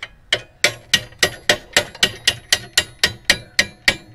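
Hammer tapping a long mounting bolt through a motorcycle crash bar, spacers and frame: a steady run of about fifteen sharp strikes at about four a second, each with a brief metallic ring.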